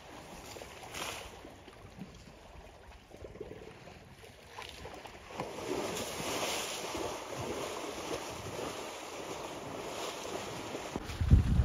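Water sloshing and splashing as an African elephant rolls and wallows in a shallow muddy waterhole, getting louder about halfway through. A gust of wind buffets the microphone near the end.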